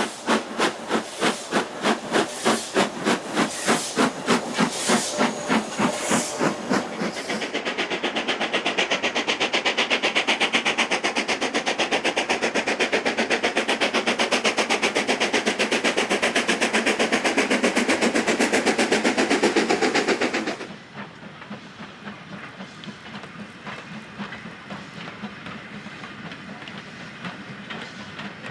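Steam locomotive working hard. Its exhaust beats come at about three a second, then run on as a fast, steady chatter with hiss. About twenty seconds in it cuts suddenly to a quieter stretch of train sound with softer, irregular rail clicks.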